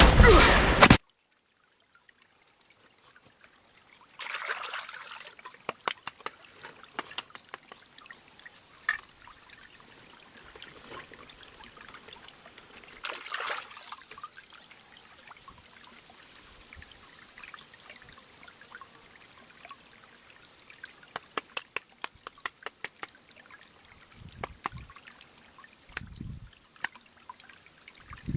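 Scattered small clicks, taps and crinkles of plastic toy parts and packaging being handled, with small clusters about four seconds in and again near the middle, over a faint steady high hiss. A louder sound cuts off abruptly about a second in.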